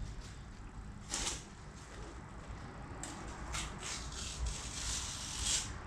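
Aerosol can of yellow marking paint spraying in short hissing bursts: one about a second in, then several close together over the last three seconds.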